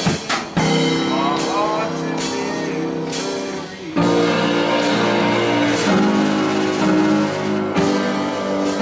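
Live blues band playing: guitar with bending notes over a drum kit, the band coming back in louder about four seconds in.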